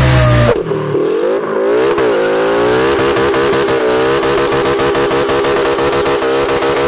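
Modified car engine at high revs. A lower engine note stops abruptly about half a second in; then the engine climbs in pitch, dips briefly twice, and holds steady at high revs.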